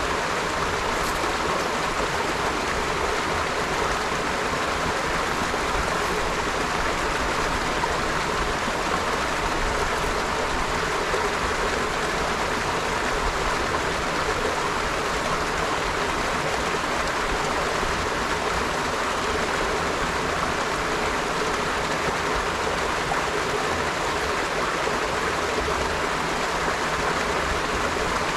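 River water flowing and rushing steadily, an even unbroken babble.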